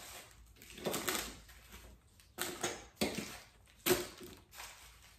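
Plastic food packets crinkling as they are handled, in about five short crackling bursts.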